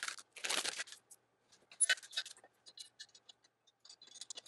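Assembly handling noise: two short rustles of a plastic hardware bag in the first second, then scattered light clicks and ticks as the screws, hex key and frame parts are handled.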